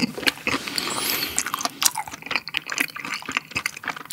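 Close-miked chewing of a mouthful of seasoned raw beef tartare (yukhoe): dense, irregular mouth clicks and smacks.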